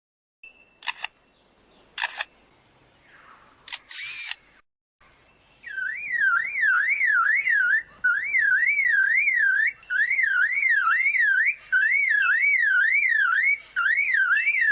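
Mockingbird singing a mimicked phrase: a few short chirps, then a fast, even up-and-down warble at about three swings a second, repeated in runs of about two seconds with brief breaks.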